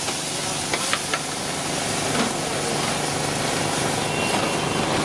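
Large flat-top dosa griddle hissing and sizzling steadily where water has been splashed onto the hot iron, with a couple of sharp utensil clicks about a second in.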